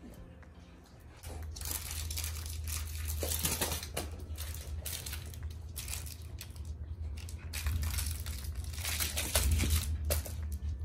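Small dog (a dachshund) grabbing, shaking and chewing a plush toy, heard as irregular rustling, crinkly bursts.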